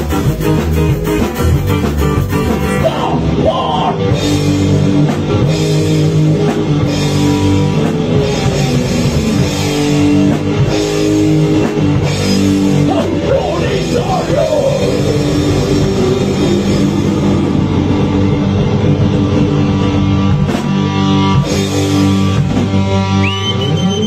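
Live heavy rock band playing: distorted electric guitar, bass guitar and drum kit, loud and steady, with a sliding guitar note about midway and a rising high tone near the end.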